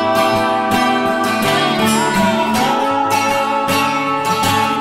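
Background music: strummed acoustic guitar over a steady beat.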